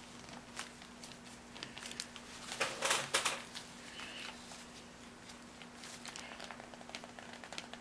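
Handling noise from a 1/6-scale plastic action figure in its cloth costume: scattered light clicks and rustling, with a louder rustle about three seconds in. A faint steady hum underneath.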